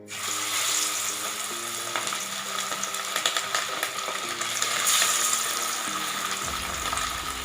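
Masala-coated fish pieces frying in hot oil in a pan: a sizzle that starts suddenly as the fish goes in and holds steady, with scattered crackles and spits of oil. Soft background music plays underneath.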